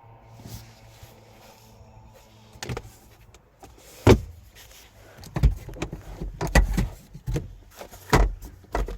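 A series of irregular clunks and knocks from a car door being opened and the car's interior being handled, the loudest about four seconds in and several more in quick succession near the end.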